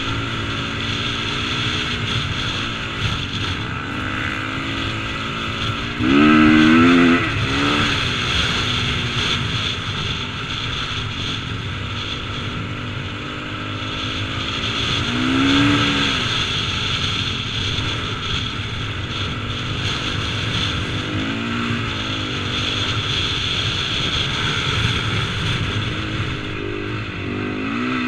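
Single-cylinder four-stroke engine of a KTM 450cc motocross bike running under throttle through sand, heard from a helmet-mounted camera. It revs up several times, the loudest burst about six seconds in.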